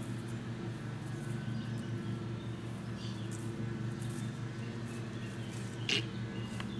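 Quiet garden ambience: a steady low hum with a few faint, short, high bird-like chirps, and one sharp click about six seconds in.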